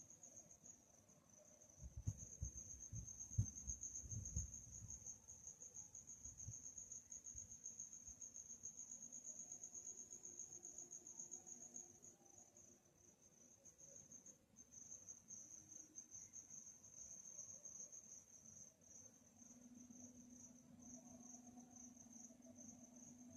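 Crickets chirping at night in a faint, continuous high trill, which breaks into separate evenly spaced pulses over the second half. A few low thumps about two to four seconds in are the loudest sounds.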